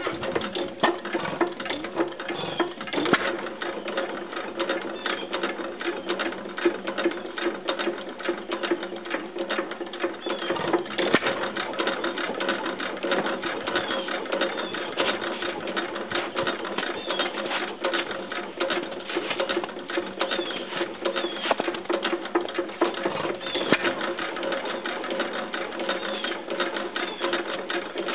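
A 1916 International Harvester Famous 3 hp hit-and-miss gas engine running after a cold start, with a rapid, steady mechanical clatter and a few louder beats.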